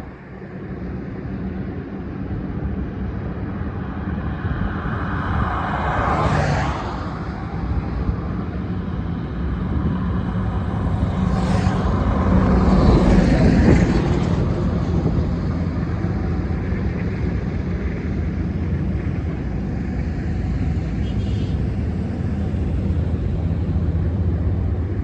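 Highway traffic: a continuous rumble of engines and tyres, with vehicles passing close by about six seconds in and again around twelve to fourteen seconds in, each swelling and fading.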